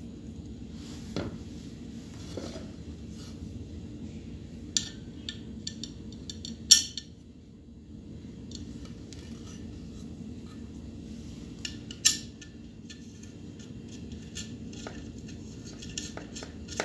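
Metal clicks and clinks from a pressure cooker lid and its safety-valve parts being handled, with two sharper knocks about 7 and 12 seconds in, over a steady low hum.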